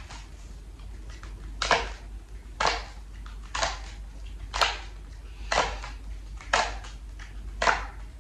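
A deck of tarot cards being shuffled by hand, a short papery swish about once a second, over a steady low hum.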